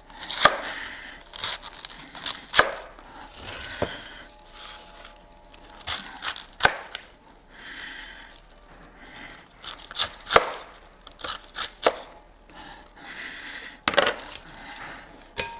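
Red cabbage being cut with a kitchen knife on a wooden cutting board: irregular sharp knocks of the blade hitting the board, about a dozen, with softer crunching of the leaves between them.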